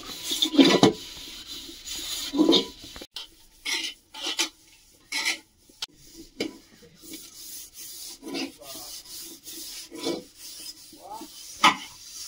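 Metal cooking pots being scrubbed by hand with a scouring pad: rasping strokes that come in uneven bursts.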